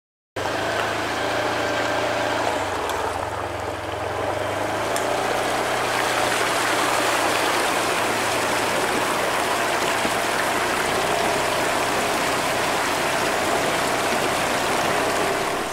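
Side-by-side UTV driving through a shallow river: its engine runs steadily under a constant rush and splash of water thrown up by the front tyre. It starts suddenly about half a second in.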